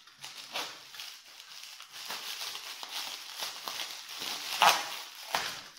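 Paper and plastic wrapping rustling and crinkling as a knife cuts it open, with two louder crackles near the end.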